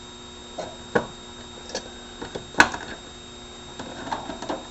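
Small metal tool bits clicking and clinking as they are handled and set down: a handful of separate sharp clicks, the loudest about two and a half seconds in, then a quick run of small clicks near the end.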